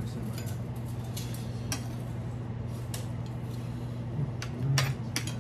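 Metal fork and spoon clicking and scraping against a dinner plate while eating, a handful of separate sharp clinks over a steady low hum.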